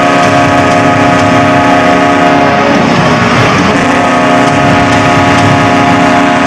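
Hockey arena goal horn sounding one long, steady, unbroken blast.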